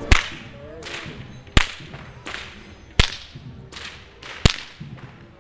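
Whip cracking: four loud, sharp cracks about a second and a half apart, with fainter cracks between them.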